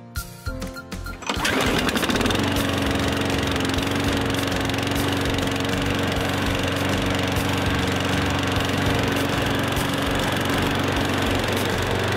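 A lawn mower engine starts up abruptly about a second in, then runs steadily at a constant speed with a pulsing low hum.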